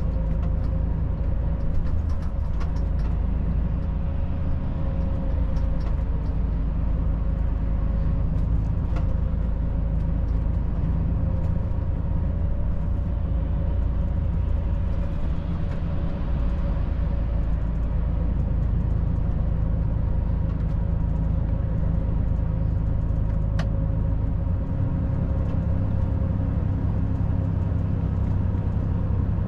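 Volvo FH 540 truck's diesel engine running steadily under road noise at highway speed. Its low note shifts near the end.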